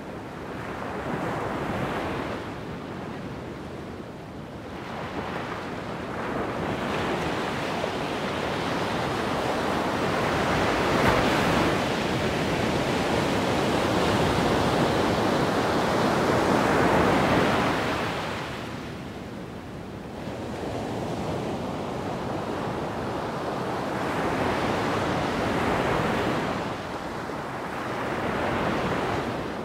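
Wind gusting over the microphone: a rushing noise that swells and fades several times, with its longest, loudest gust through the middle.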